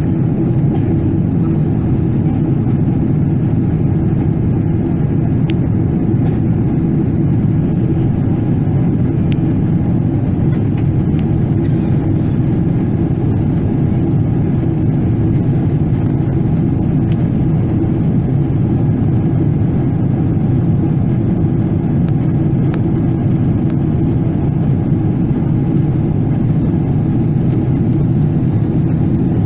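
Steady cabin noise of a Boeing 777-300ER in flight: an even, low rumble of the engines and rushing airflow, heard from inside the cabin at a window seat.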